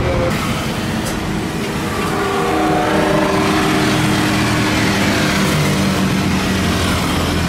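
Jet airliner passing low on its landing approach: a steady, loud engine noise with a few held tones in it.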